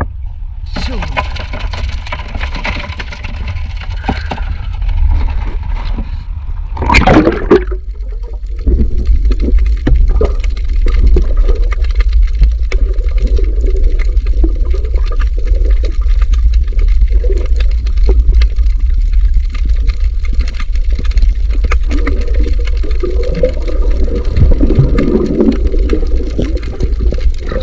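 Water splashing at the surface and a loud splash about seven seconds in as the camera goes under. Then the dull, muffled rumble of water heard underwater, with scattered clicks.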